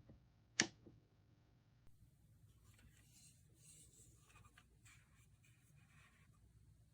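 One sharp click about half a second in, then faint scratchy rubbing and light clicking for a few seconds, like small hard objects being handled against one another.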